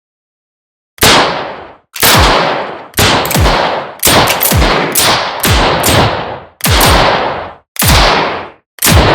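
Revolver gunshot sound effects: a string of single loud shots, each ringing off in a short tail. They come about one a second, with a faster cluster in the middle, after a second of silence at the start.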